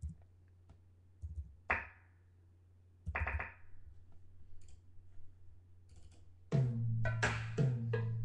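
Background music: a few sparse percussive hits with short ringing decays, then a full track with bass and a steady beat coming in about two-thirds of the way through.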